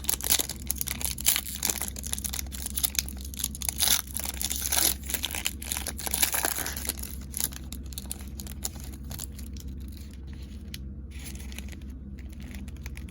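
A football trading-card pack's foil wrapper being torn open and crinkled: a dense run of crackling and ripping for the first seven seconds or so, then only light handling noise.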